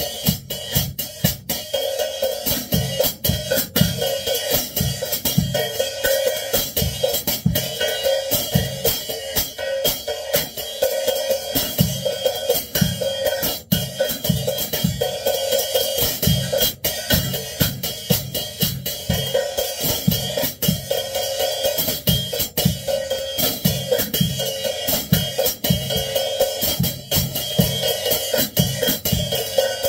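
Drum kit played with wooden sticks: a steady beat of snare strokes and cymbal hits, with kick drum underneath.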